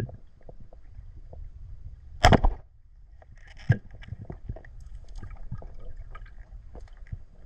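Speargun fired underwater: one loud sharp snap about two seconds in, then a second sharp knock about a second and a half later. Scattered underwater clicks and crackles over a low water murmur follow.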